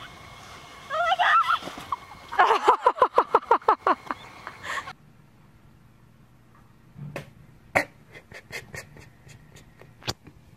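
A person's voice cries out with a pitch that bends up and down, then laughs in a quick run of bursts. After that comes a faint low hum with a handful of sharp clicks and knocks.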